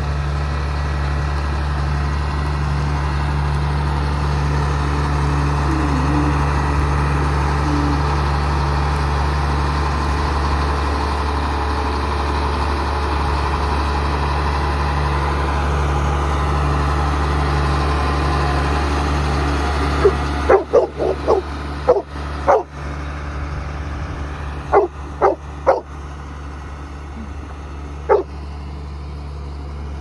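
A John Deere Turbo 6620 combine's turbocharged diesel engine runs steadily as the combine pulls out. About two-thirds of the way in the engine sound drops, and a dog barks repeatedly in short clusters of sharp barks.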